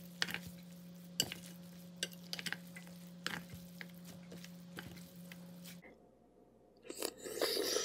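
Utensils tossing noodles in a metal bowl: scattered clicks against the metal over a steady low hum. This stops suddenly, and about a second later comes a louder bite and chewing, the loudest part.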